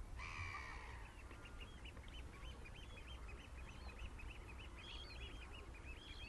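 A flock of black-headed gulls calling: many short, overlapping cries that rise and fall in pitch, with one louder, harsher call just after the start.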